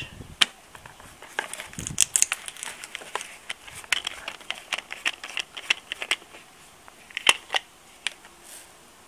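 Small plastic herbicide bottle being handled and its screw cap unscrewed and lifted off: a run of small, sharp plastic clicks and crinkles, the loudest about seven seconds in.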